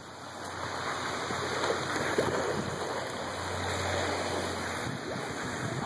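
Steady rushing water noise, a low even hiss without distinct splashes.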